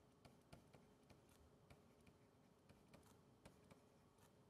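Very faint, irregular ticks and light scratches of a marker pen writing on a white surface, a few strokes a second.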